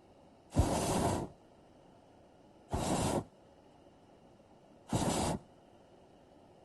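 Air hissing out of a balloon in three short bursts about two seconds apart, each starting sharply and lasting under a second.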